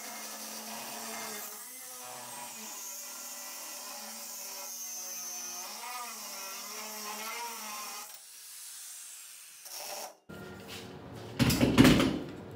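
Angle grinder with a thin cut-off (zip-cut) wheel cutting through welded metal angle held in a vise, the motor's whine wavering in pitch as the load changes. About eight seconds in it is switched off and winds down. Near the end there are a few loud knocks and clatter.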